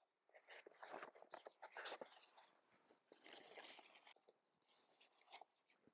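Faint crackling and rustling of a cardboard egg carton being handled and set down into a wicker basket, in two short spells.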